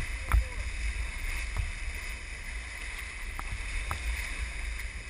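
Water rushing along the bow of a moving fishing boat, over a steady low rumble, with a few short sharp splashes.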